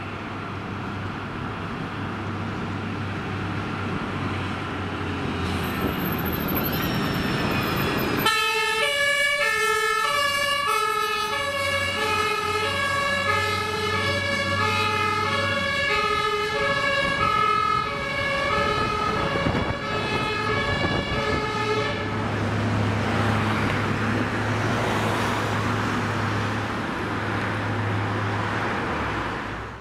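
A THW mobile crane truck on an emergency run: its engine runs as it approaches, then from about eight seconds in its two-tone emergency siren sounds, switching back and forth between two pitches, and stops about twenty-two seconds in, leaving the truck's engine running as it pulls away.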